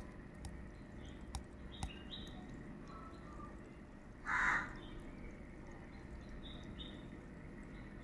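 Birds calling in the background: brief high chirps come and go, and one louder, harsher call lasting about half a second sounds a little past the middle.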